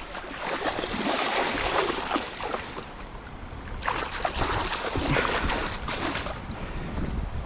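Water splashing and sloshing in two spells, each a couple of seconds long, with a quieter gap between them.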